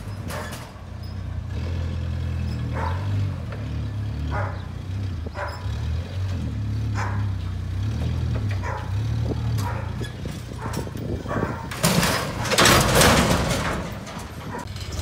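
Propane forklift engine running steadily while it raises a discarded printing machine over a steel roll-off dumpster. About twelve seconds in, the machine drops into the dumpster with a loud crash and clatter lasting a second or so. Short sharp sounds come every second or two throughout.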